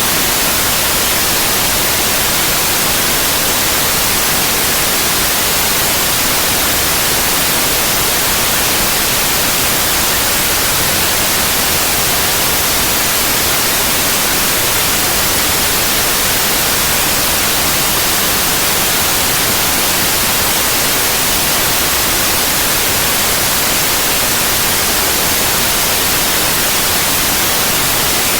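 Steady, unbroken white noise: an even hiss across all pitches, heaviest in the high end.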